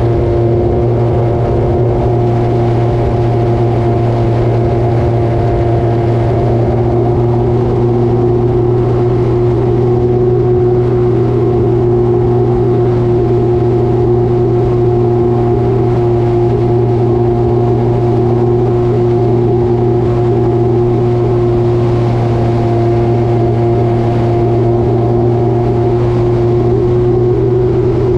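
Hangar 9 Timber 110 RC airplane's motor and propeller heard from an onboard camera in flight: a loud, steady drone that holds nearly the same pitch throughout, with air rushing past.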